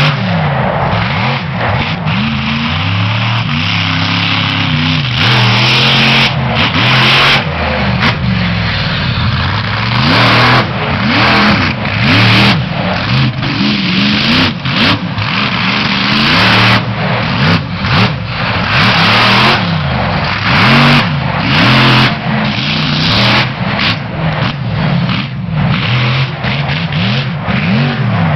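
Monster truck engine revving hard, its pitch rising and falling over and over as the throttle is worked.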